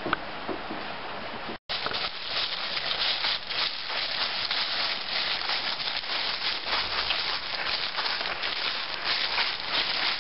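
Footsteps shuffling and crunching through dry fallen leaves: a dense, continuous rustle that starts abruptly after a brief dropout about a second and a half in.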